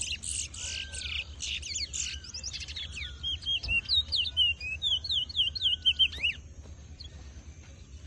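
Towa-towa (ruddy-breasted seedeater) song: a fast run of high chirps and repeated down-slurred whistles that stops about six seconds in.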